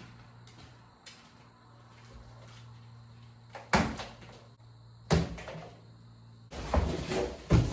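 Knocks and bangs from handling a steel rolling toolbox: two sharp knocks a little over a second apart, then a longer run of clattering and scraping near the end, over a steady low hum.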